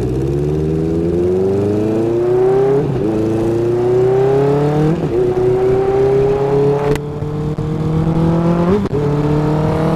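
Motorcycle engine pulling hard up through the gears, its pitch climbing in each gear and dipping briefly at gear changes about three, five and nine seconds in, with wind rushing over the microphone.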